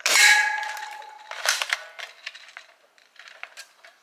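Plastic BBs from a toy gun striking metal cans. The first hit gives a loud ringing clang that dies away over about a second, a second hit comes about a second and a half in, and lighter clinks and rattles follow as the cans are knocked over.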